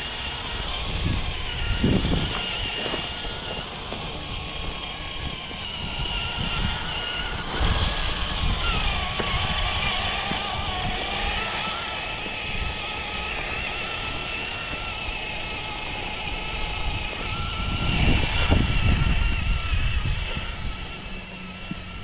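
Traxxas TRX-4 RC crawler on Traxx rubber track units driving: a whine from its electric motor and gearbox that wavers in pitch with the throttle, over an uneven low rumble and knocking from the tracks, loudest a few seconds before the end.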